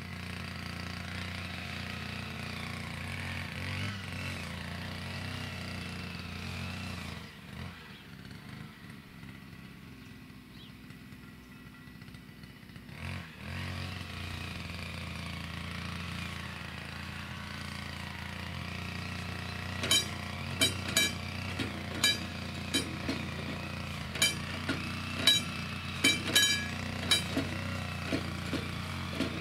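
Steady outdoor background with a low engine-like hum. In the last third comes a run of about a dozen sharp metallic knocks at uneven intervals, each with a short ringing tone, like hammering on metal.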